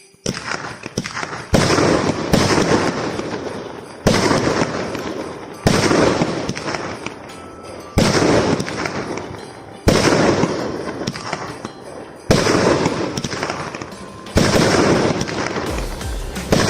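A 190-shot fireworks battery (cake) firing: a sharp report about every two seconds, each followed by a long fading rush of sound that dies down before the next shot.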